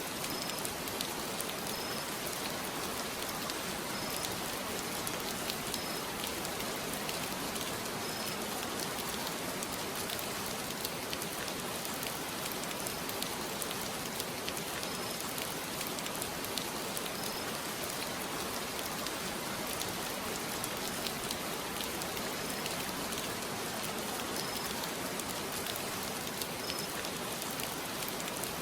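Steady rain falling, an even hiss with scattered ticks of drops striking a surface.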